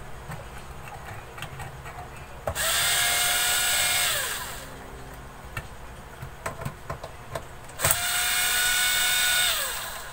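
Electric screwdriver running twice, each time for about two seconds: the motor starts suddenly at a steady pitch and winds down in pitch when released, backing out screws while the amplifier is being taken apart.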